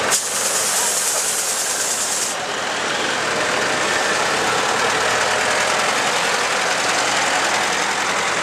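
Diesel engines of East German Fortschritt ZT 300-series tractors running as the tractors drive slowly past. A sharp hiss starts suddenly just after the start and cuts off about two seconds later.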